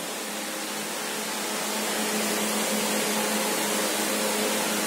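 Steady hum and airy hiss of a running ventilation appliance, such as a room fan, holding one low tone and swelling slightly about two seconds in.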